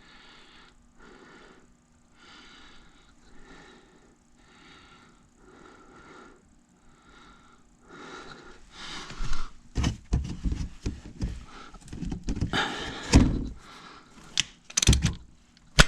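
Hand work on a car's serpentine belt and tensioner under the hood: soft repeated rustling at first, then, about eight seconds in, a run of loud clunks and thuds of metal parts and tools.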